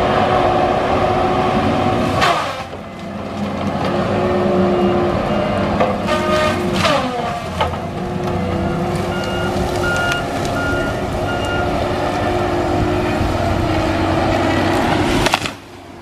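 Tigercat LX830D feller buncher working, its diesel engine and spinning saw disc running steadily. About six to seven seconds in, the pitch slides down as the disc bites into a trunk, then picks back up. A few short beeps sound near the middle.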